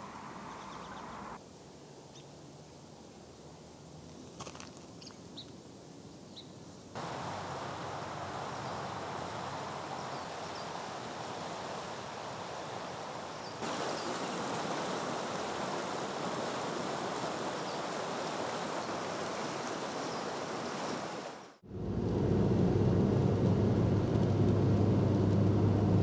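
River water flowing, growing louder in steps to the steady rush of whitewater rapids, with a few short bird chirps in the quieter first stretch. Near the end it cuts suddenly to the steady drone of a car driving, heard from inside.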